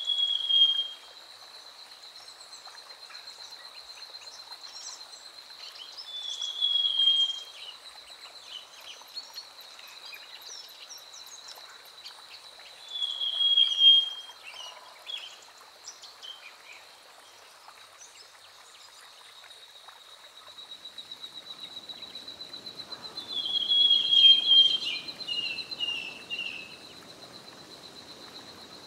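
Black-headed sibia calling: a loud, short, falling whistled phrase, given four times several seconds apart, the last followed by a few shorter notes. Under it runs a steady high pulsing tone.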